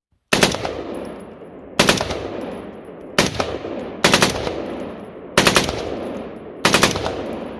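M16A4 rifle firing three-round bursts, six bursts in a row about a second and a half apart, each ringing out in a long echo.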